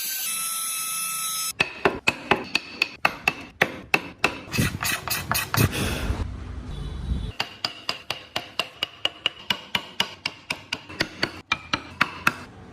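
Repeated hammer blows on a carving tool, about three sharp strikes a second with a faint metallic ring, starting abruptly about a second and a half in. The blows come faster for a few seconds in the middle.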